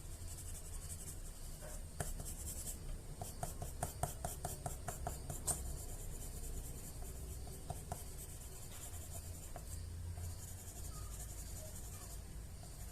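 Writing on paper: a tip scratching across the sheet, with a quick run of light ticks about three to six seconds in.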